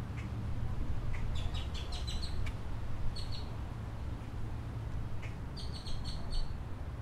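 Small bird chirping in three runs of quick, high, repeated notes, over a steady low outdoor rumble.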